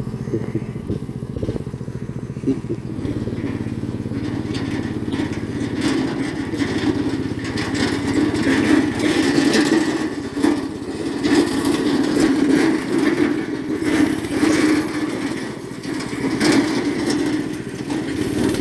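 Small engine running steadily, with many short knocks and rattles over it.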